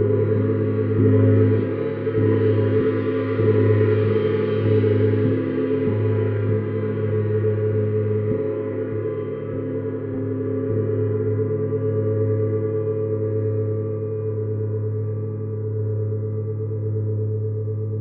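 Neptune gong played with a soft mallet in a continuous rolling wash: a deep, sustained ringing hum under a bright shimmer. The shimmer swells about four seconds in and then slowly fades, while the low tones keep ringing; the soft strokes thin out in the second half.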